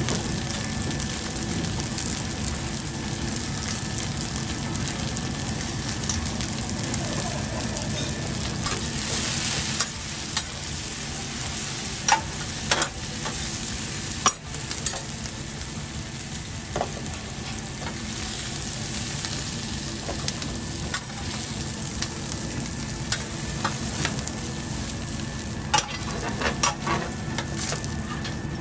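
Chicken and vegetables sizzling on a hot flat-top steel griddle, with a metal spatula scraping and clacking on the plate now and then as the food is pushed and gathered up.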